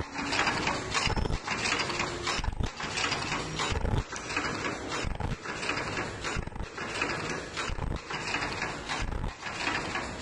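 Automatic face-mask ear-loop machine running, its mechanism clattering and clicking through a repeating cycle about every 1.3 seconds, one mask per cycle.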